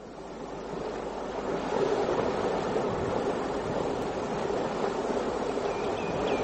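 Ocean surf, a steady wash of breaking waves, fading in over the first two seconds and then holding steady.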